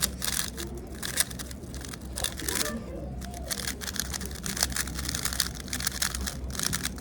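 Speedcube being turned fast by hand: a rapid, irregular stream of small plastic clicks and clatter.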